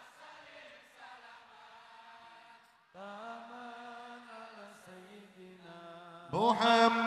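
Unaccompanied male singing of a slow, drawn-out Arabic sholawat line with no drums. It is soft at first, with held, wavering notes from about three seconds in, then much louder near the end.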